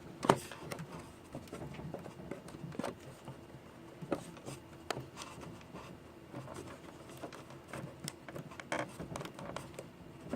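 Scattered light clicks, taps and rubbing from computer parts being handled, with a sharper knock about a third of a second in.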